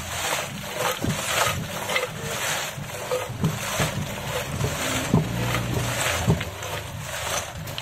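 Chunks of ice clunking and scraping against each other and the clay pot as hands press them down around the kulfi moulds, in irregular knocks.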